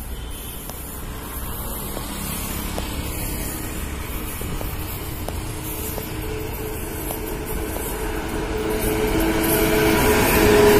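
An Indian Railways WAP7 electric locomotive hauling a passenger train approaches at speed. Its rumble grows steadily louder, and a steady hum of several tones comes in as it draws close near the end.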